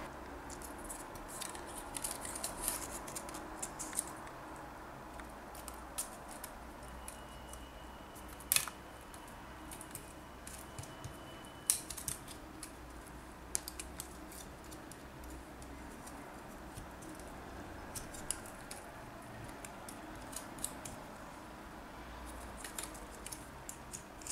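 Small metal parts of a knife-sharpening guide being handled and fitted by hand: a metal rod, clamps and a screw give sparse light clicks and scrapes, with sharper metallic clicks about eight and a half and twelve seconds in.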